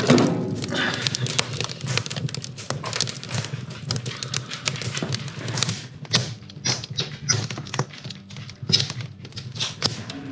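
Wood fire burning in a wood stove, crackling and popping with many irregular sharp snaps. A heavier knock comes right at the start.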